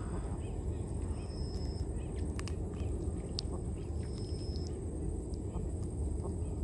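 Outdoor night background with a steady low rumble. A short, high, steady animal call repeats roughly every three seconds, and a few sharp clicks come near the middle.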